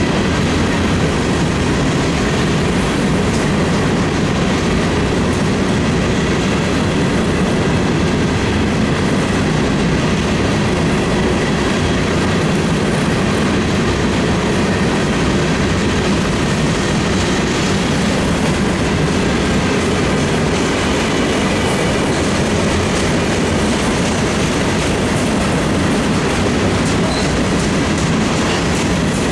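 A long freight train's cars rolling past, a steady, unbroken rumble and clatter of wheels on the rails.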